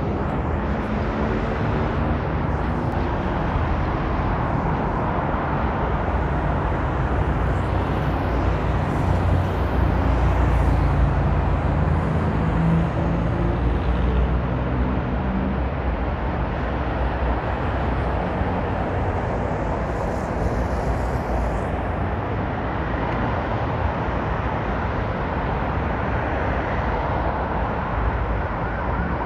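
Road traffic: cars, vans and pickup trucks passing on a multi-lane road, a steady wash of engine and tyre noise. A low, even engine hum sits under it through the first half or so, then fades into the general traffic noise.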